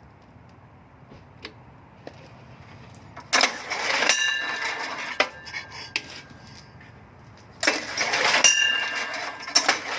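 Electric starter cranking a Honda ES3500 generator's engine in two bursts, a short one a little past three seconds in and a longer one of about two seconds near the end. The engine turns over but does not catch: it fails to start even though the starter runs and there is spark.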